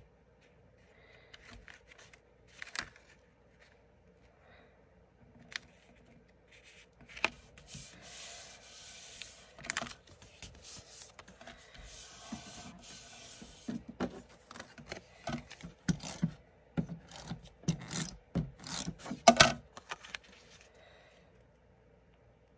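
Cardstock layers being handled, slid and pressed flat by hand on a craft mat while they are taped together: paper rubbing and rustling, then a run of light taps and knocks in the second half.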